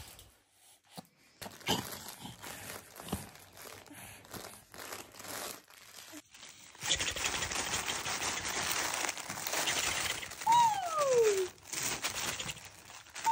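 Soft fabric baby toys crinkling as they are handled for several seconds, with a baby's squeal falling in pitch about ten seconds in.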